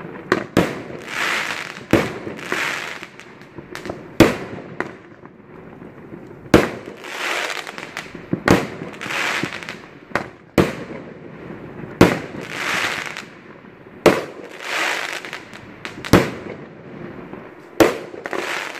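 Fireworks going off in a steady series: a sharp bang about every two seconds, each followed by a second or so of hissing crackle.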